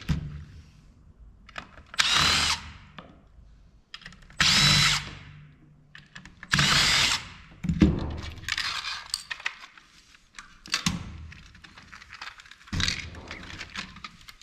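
A power drill briefly run three times to back out screws, each burst under a second with a faint motor whine, followed by scattered clicks and rattles of metal parts being handled.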